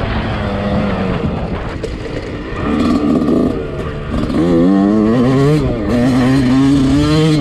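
Yamaha YZ125 two-stroke single-cylinder engine heard from on the bike: steady part-throttle for the first couple of seconds, then revving up in rising surges and holding high revs through the second half.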